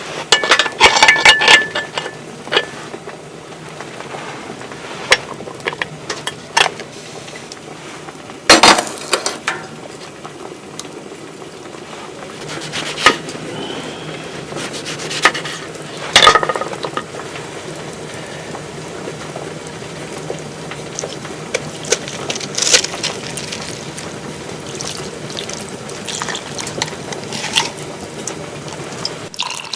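Cooking sounds: a pot and utensils clinking and knocking, with a cluster of clatter right at the start and single knocks later, over a steady hiss of food cooking in the pot.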